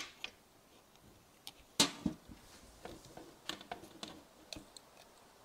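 Small metal parts of a Holley 94 carburetor being handled: a series of light clicks and knocks of metal on metal and on a sheet-metal tray, the loudest about two seconds in.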